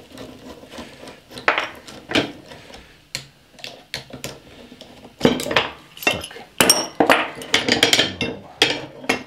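Steel parts and a tool clinking and clanking as the reel unit's suspension joint is worked apart: a few scattered clicks at first, then a quick run of sharp, ringing metal clanks from about five seconds in.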